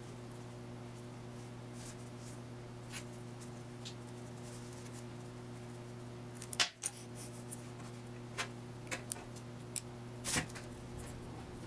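Small metal parts of a clutch slave cylinder clicking and clinking as they are handled and fitted back together by hand, over a steady low hum. One sharper click comes a little past halfway, then a scatter of lighter ticks.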